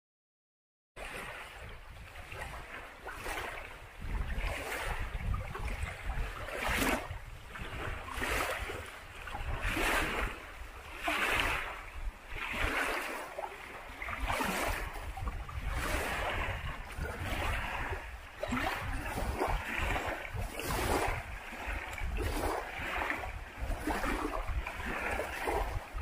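Small waves on a lake washing and lapping, a surge about every second or so, over a low rumble of wind on the microphone. The sound starts abruptly about a second in.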